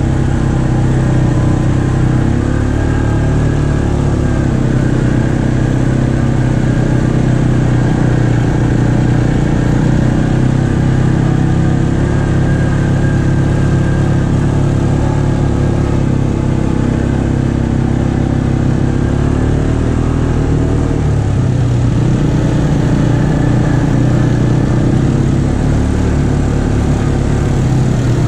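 ATV engine running steadily at trail speed, its pitch dipping and rising slightly a few times as the throttle eases and opens.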